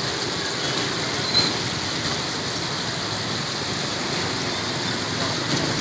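Oil bubbling and sizzling in a stall's deep fryer as chicken pieces fry, over a steady rumble of street traffic, with one sharp tick about a second and a half in.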